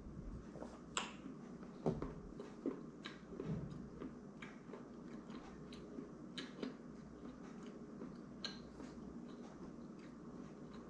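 Quiet eating sounds: chewing, with small irregular clicks and taps of fingertips picking crumbs off a wooden board. A few clicks in the first few seconds are louder than the rest.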